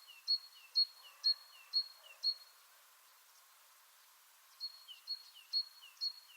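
A songbird repeating a short high two-part call about twice a second: a sharp high note followed by a lower falling note. The calls stop a little over two seconds in and start again after about two seconds of quiet.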